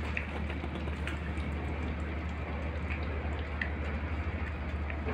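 Puppies chewing and tearing raw meat from a metal tray: scattered small wet clicks and smacks over a steady low hum.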